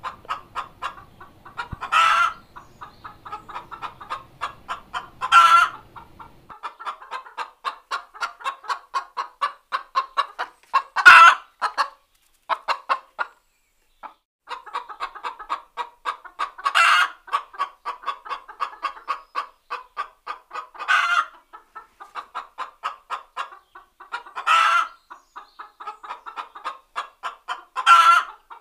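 A hen's egg-laying cackle: runs of quick, clipped clucks, each ending in a long, loud squawk, seven of these in all with a brief pause midway.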